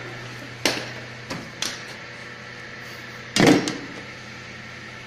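A few sharp knocks, then a louder, longer bang about three and a half seconds in, over a steady low hum.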